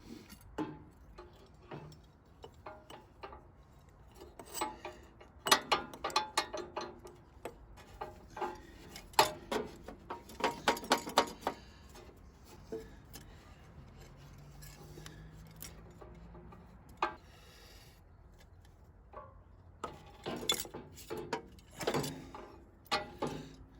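Hand work on a tractor's radiator hose and its metal hose clamp: scattered metallic clinks, clicks and rubbing, coming in several bunches of quick sharp strokes.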